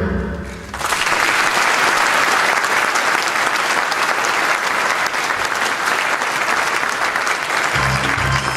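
Audience applauding, which breaks out about a second in as the music stops. Music starts again near the end.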